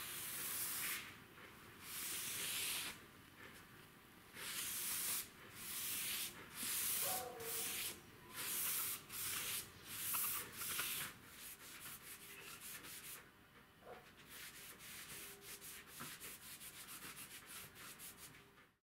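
Foam sponge rubbing a liquid finish onto a wooden workbench top, a hissy swish with each stroke. The strokes are long and slow at first, then short and quick, about three a second, before stopping suddenly near the end.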